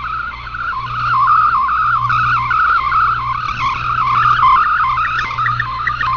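Digital data signal from a shortwave radio broadcast: fast, continuous warbling tones hopping up and down in pitch, the multi-tone sound of an MFSK-family text mode being transmitted, over a low hum.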